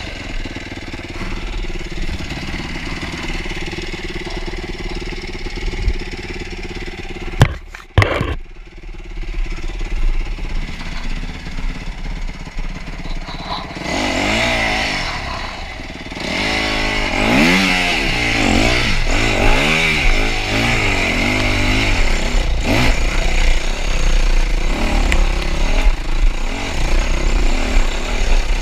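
Yamaha YZ250F dirt bike's single-cylinder four-stroke engine running under a riding rider, with two sharp knocks about halfway through the first third. From about halfway in, the engine revs up and down repeatedly.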